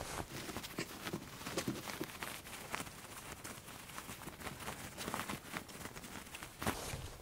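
Soft, irregular rustling and small clicks of cotton fabric being handled as hands turn a lined zipped bag right side out.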